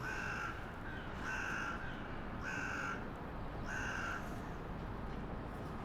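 A crow cawing four times, evenly spaced about a second apart, each caw short and flat in pitch, over steady street background noise.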